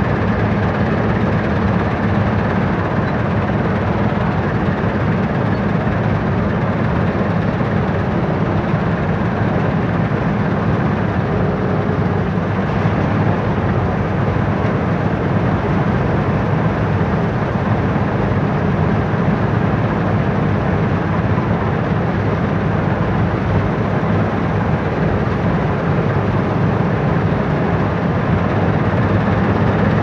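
Dashmesh 9100 self-propelled combine harvester running steadily under way, its diesel engine and threshing machinery making a loud, even, low-pitched noise heard from the open operator's platform.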